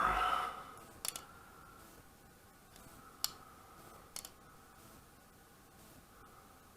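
Benchmade Contego folding knife's AXIS lock clicking as the blade is swung open and shut: a loud metallic snap with a short ring at the start, then three fainter, spaced clicks.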